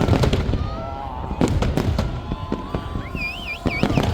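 Fireworks display going off: a dense run of sharp bangs and crackling. A warbling, rising-and-falling whistle comes in about three seconds in.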